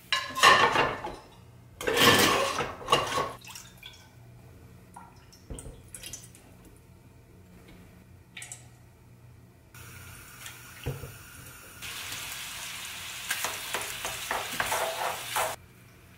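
A metal pan clattering on a gas hob's grate twice near the start, with a few light knocks after. Later a steady rush of liquid poured into the pan grows louder and then stops abruptly.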